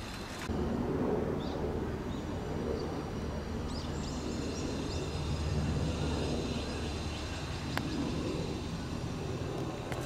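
Steady low mechanical hum of an air-conditioner outdoor unit's machinery with open-air noise over it, getting louder about half a second in, with a single sharp click near the end.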